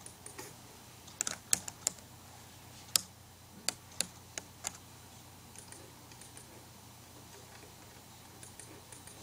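Irregular light clicks and taps, about a dozen in the first five seconds, then only a few faint ticks.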